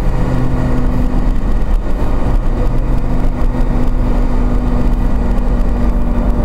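Car engine running at a steady pitch while driving, with heavy low road and wind rumble, as heard from a dashcam inside the car.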